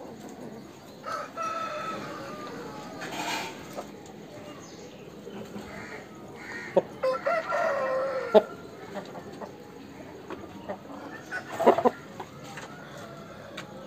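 Aseel roosters crowing: two drawn-out crows, one about a second in and a louder one about seven seconds in, with softer clucking between and a few sharp clicks near the end.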